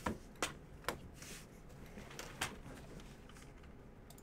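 Faint clicks and taps at a desk: four sharp clicks in the first two and a half seconds, with light rustling between them, over a low steady room hum.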